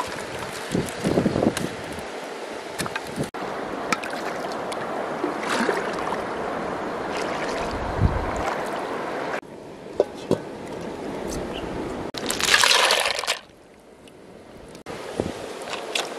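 Water sloshing and trickling in a shallow river as a metal cooking pot is dipped and handled, with one louder splash about three-quarters of the way through.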